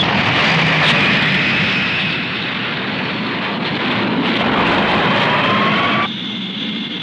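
Animated sound effect of rocket engines firing at lift-off: a loud, steady noise with a high whistling tone over it. A second tone rises slowly later on, and about six seconds in the sound drops abruptly to a quieter level.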